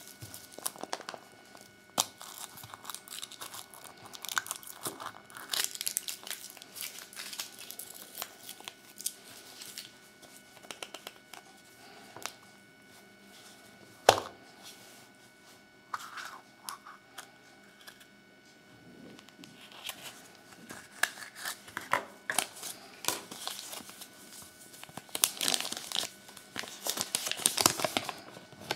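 Kinder Surprise egg's foil wrapper crinkling and tearing as it is peeled, with many small clicks. About halfway through there is one sharp, loud snap as the yellow plastic toy capsule is pried open. Near the end, paper crinkles as the folded leaflet is opened.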